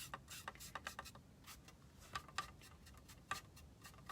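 A paintbrush dabbing and stroking paint onto a craft pumpkin, with faint, irregular short brushing and tapping sounds, several a second.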